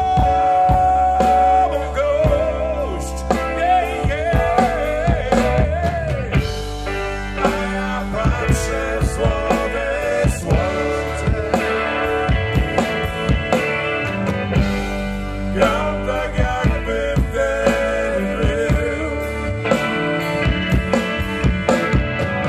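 Live rock band playing a slow rock ballad: electric guitar, bass guitar and drum kit.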